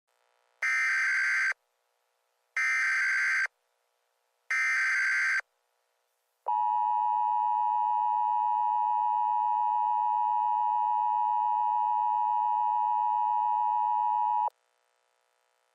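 Emergency Alert System tones: three short bursts of SAME digital header data, each under a second long and about a second apart, then the steady two-tone EAS attention signal held for about eight seconds before cutting off abruptly. This sequence marks the start of a new emergency alert message.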